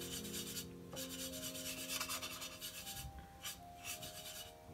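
Round watercolour brush scrubbing in the wet paint of a metal palette tin to load a curry-yellow colour, rubbing back and forth in several short strokes.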